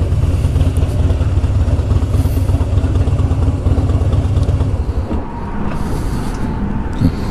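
Motorcycle engine running steadily under way, its firing pulses dense and even. About five seconds in, the engine note drops and quietens as it eases off.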